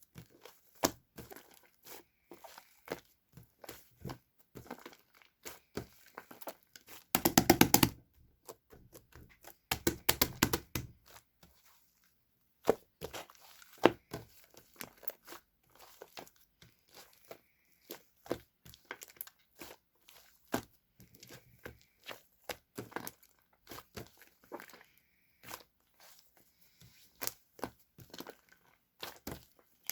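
Slime being squished and pressed by hand, making soft sticky clicks and crinkly pops. There are dense runs of crackling about seven and ten seconds in.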